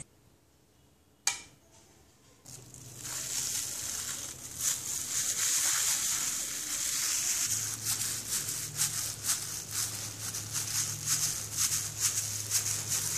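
A thin plastic food-handling glove crinkling and rustling as a gloved hand rubs over a wooden board, with many quick scratchy crackles. A faint steady low hum comes in about halfway through.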